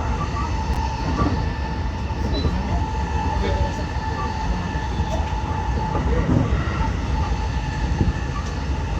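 Running sound of a JR West 223 series 2000-subseries electric train with Hitachi IGBT inverters, heard inside the car: steady rumble of wheels on rail with an even, steady motor whine, the train holding a constant speed.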